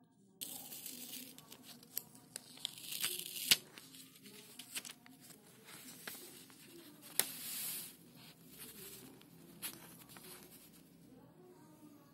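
Paper rustling and crinkling as a kraft-paper card is slid out of a translucent paper sleeve and unfolded, with a few sharp paper snaps. It starts suddenly about half a second in and is loudest around three seconds in and again near the middle.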